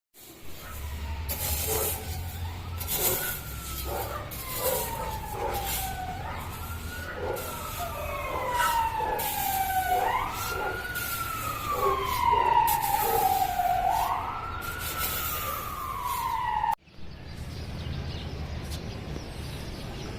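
A wailing siren whose pitch slides slowly down and then sweeps quickly back up, about every three seconds, over scattered clicks and rustling. It cuts off abruptly near the end, leaving quieter outdoor background.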